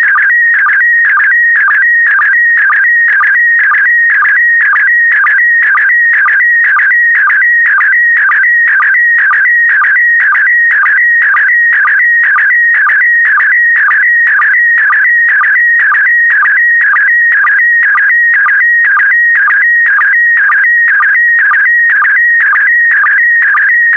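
Slow-scan TV image signal in PD120 mode: a loud, continuous warbling electronic tone that shifts in pitch as it carries the picture, broken about twice a second by a short lower blip, the sync pulse that starts each pair of scan lines.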